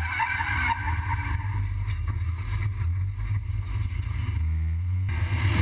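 SEAT Leon Supercopa race car's turbocharged four-cylinder engine heard from inside the cabin, a steady low drone under load on track.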